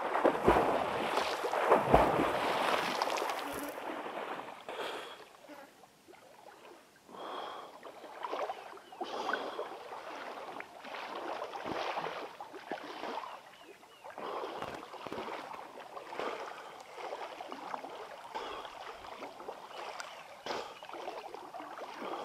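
Water splashing as a person swims out into a river: heavy splashing for the first few seconds, then lighter, irregular splashes of swimming strokes.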